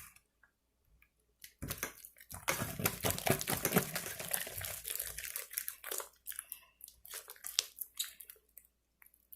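Glow-in-the-dark glue slime being squished and kneaded by hand in a bowl, making irregular wet squelches and sticky popping clicks from about a second and a half in. The slime is gloopy and just starting to firm up as activator is worked in.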